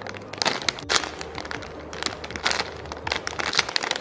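Clear plastic packaging bag crinkling as it is handled, a run of quick, irregular crackles.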